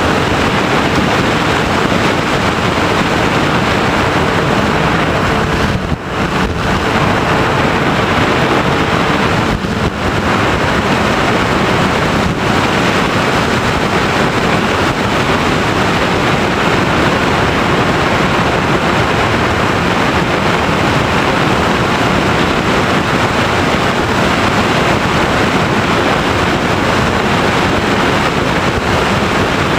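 Steady rush of airflow and motor noise picked up by the onboard camera of an FPV Raptor radio-controlled plane in flight. A faint hum stops about ten seconds in, and the level dips briefly about six and ten seconds in.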